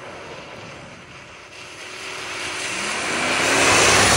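2005 Toyota Tundra with its 4.7-litre i-Force V8 driving toward and past on a wet gravel road. Engine and tyre noise on the wet gravel grow steadily louder as it approaches, loudest near the end as it passes close by.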